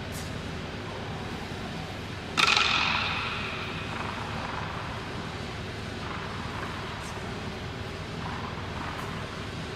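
A tennis ball struck once, a sharp smack a little over two seconds in that rings out and dies away over about a second in the echoing indoor tennis hall, over a steady low hum.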